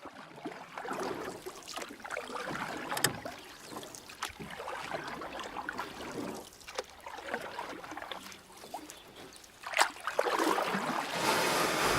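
Oars dipping and splashing as a small rowboat is rowed across a lake, with a few sharp knocks and the water noise getting louder near the end.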